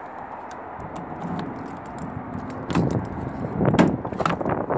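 Keys jangling in the tailgate lock of a 2014 GMC Sierra pickup, with small clicks, then a few louder clunks of the lock and latch as the tailgate is unlocked and its handle pulled, about three seconds in.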